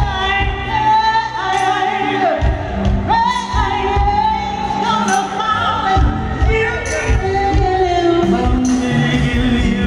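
Live R&B band with a woman singing long, held notes in phrases that slide down at their ends, over bass and drums.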